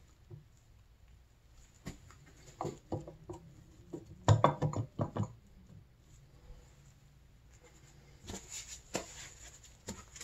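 Light knocks and scrapes of a two-stroke snowmobile engine cylinder being handled on its crankcase, with the loudest cluster of knocks about four seconds in, then a few more knocks and a brief rustle near the end as a paper shop towel wipes the cylinder.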